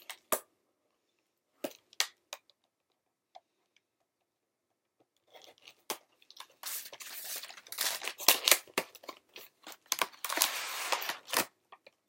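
Scissors cutting into a makeup package and the packaging crackling and tearing open: a few separate sharp snips and clicks, then from about five seconds in some six seconds of dense crinkling and crunching.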